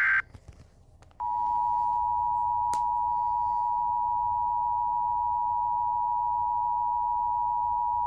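Emergency Alert System attention signal: a steady two-tone alert that starts about a second in and holds at an even level. At the very start the tail of the alert's header data burst cuts off.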